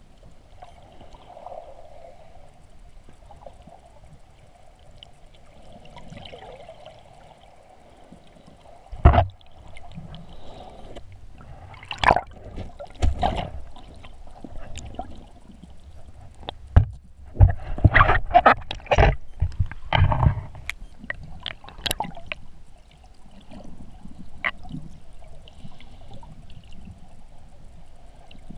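Underwater sound through a submerged camera: a steady muffled hum of the water with scattered sharp knocks and bubbling bursts, the loudest about nine seconds in, a cluster a little after twelve seconds, and a run of them between about seventeen and twenty seconds.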